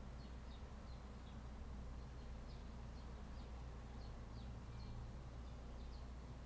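Faint outdoor ambience: scattered short, high chirps at irregular intervals over a steady low rumble.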